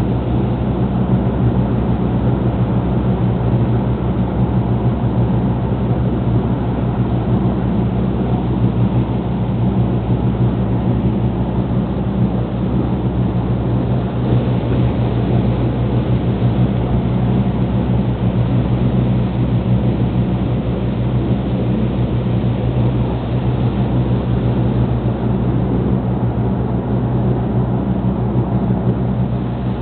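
Lobster boat's engine running steadily under way, a constant low drone, over the rush of water churned up in the wake.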